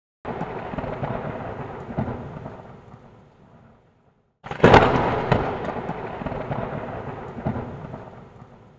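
Volcanic eruption explosions: two sudden blasts about four seconds apart, the second louder, each followed by a rumble with sharp crackling that dies away over a few seconds.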